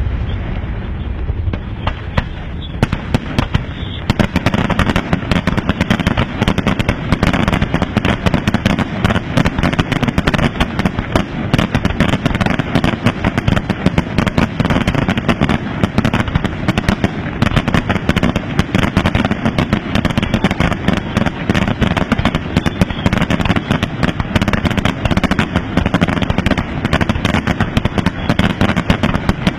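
Aerial fireworks display: a dense, continuous barrage of firework shells bursting, many sharp bangs and pops a second, loud, with deep thuds underneath.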